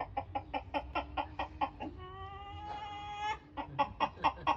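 Chicken clucking in a quick, even rhythm, about five clucks a second. About two seconds in, the clucking gives way to one long, held call that lasts over a second, then the clucking resumes.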